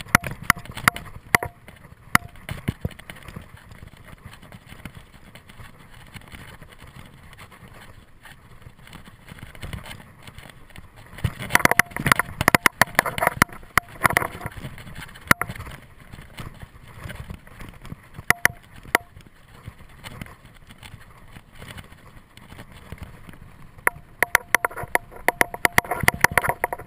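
Mountain bike riding down a dirt singletrack: tyres rolling on the trail with frequent sharp rattles and knocks from the bike over bumps. The clatter is densest and loudest a little under halfway through and again near the end.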